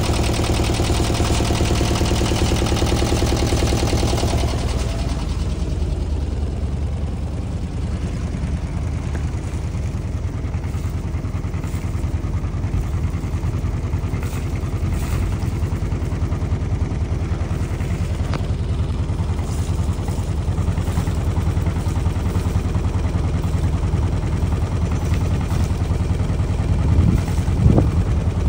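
A yacht's inboard diesel engine idling with a steady rhythmic knock. It is loud and full for the first few seconds, then duller and more distant.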